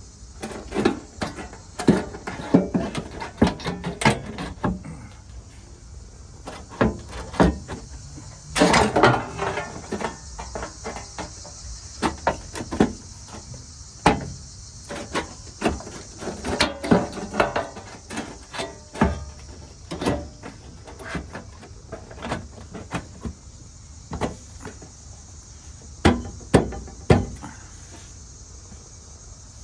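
Irregular knocks, taps and clatter of sheet metal being handled and worked while fitting a pickup truck body panel, with one longer scrape about nine seconds in. Crickets chirp steadily in the background.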